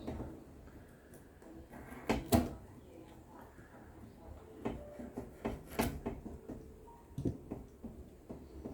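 Rope being handled by hand: irregular knocks and rustles. The loudest is a pair of sharp knocks about two seconds in, followed by a cluster of smaller clicks.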